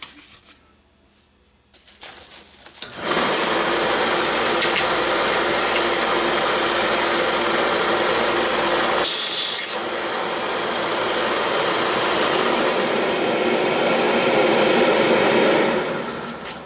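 An electric woodworking power tool running while it cuts or sands a small wooden toy-train coupler square. It starts about three seconds in, dips briefly around the middle and stops just before the end.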